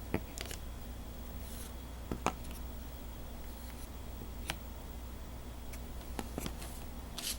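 Trading cards being handled and flipped through by hand: a few faint, scattered clicks and slides over a steady low hum.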